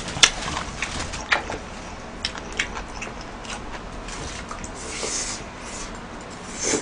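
Close-miked eating: a metal spoon clicking sharply against a plastic takeout container several times, the loudest just after the start, as fried rice is scooped up, with chewing and wet mouth sounds between.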